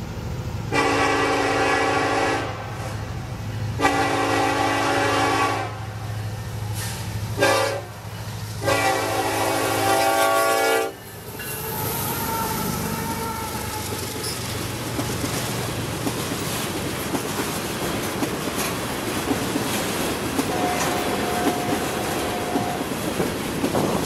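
Norfolk Southern diesel locomotive's air horn sounding the standard grade-crossing signal: two long blasts, a short one and a long one, over the low hum of the approaching engine. Then the locomotive and loaded tank cars roll past close by with a steady rumble of wheels on rail and clicking over the rail joints.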